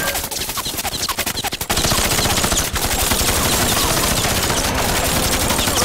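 Sustained rapid automatic gunfire, a cartoon sound effect of machine guns firing in long continuous bursts, with a short dip under two seconds in.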